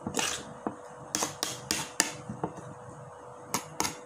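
A spoon stirring a beaten egg mixture in a bowl, knocking against the bowl in a run of sharp, irregular clinks, about nine of them.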